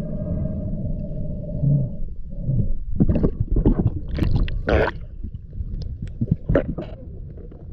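Muffled sound recorded underwater through a camera housing: a steady hum with an overtone for about two seconds, then a run of irregular gurgling, bubbly rushes and knocks as the freediver moves down through the water.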